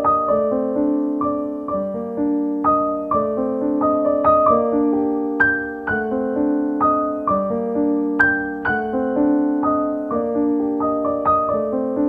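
Background piano music: a repeating pattern of single notes over held chords.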